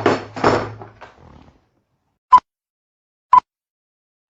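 A brief harsh growling burst in two pulses over a low hum, then silence, then short electronic beeps, one each second.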